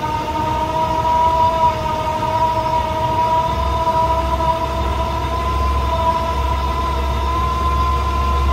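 Battery-powered electric winch running under load as it hauls the antenna tower upright: a steady motor whine whose pitch creeps slowly higher, with a low hum joining about a third of the way in.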